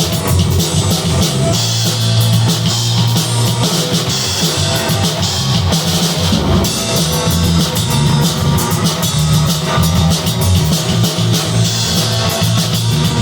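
Rock trio playing: a drum kit with busy cymbals, guitar and fretless bass, with the bass line low and prominent.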